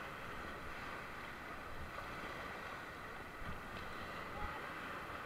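River whitewater rushing steadily around an inflatable raft as it crosses a rapid, with a few faint knocks.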